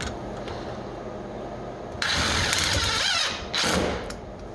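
Cordless impact driver driving a screw up through a dishwasher mounting tab into the underside of the countertop. It runs in one burst of about a second, stops briefly, then gives a second short burst.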